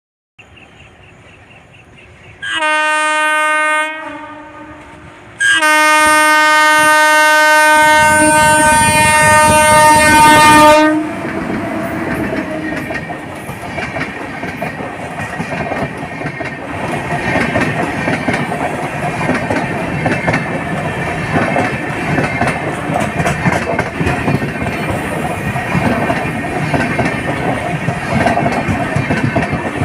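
WAP7 electric locomotive's horn: a short blast, then a long blast of about five seconds. The rumble and clickety-clack of the train running on the rails then carries on steadily.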